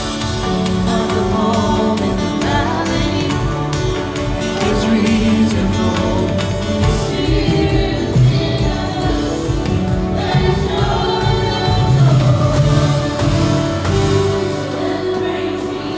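A worship band playing a song live in the room, with several singers over the instruments and a steady beat.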